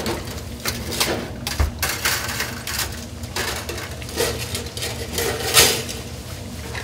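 A breaded pork cutlet deep-frying in hot oil in a commercial fryer: steady sizzling with irregular crackles and pops, one louder pop late on.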